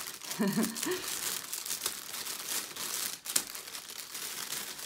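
Plastic mailing bag crinkling as scissors cut along its edge, with a run of small snipping clicks.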